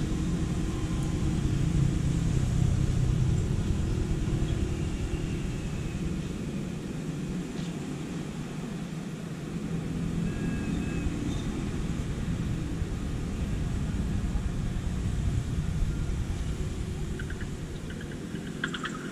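Low outdoor rumble that swells and eases, with a few faint high whistling tones over it.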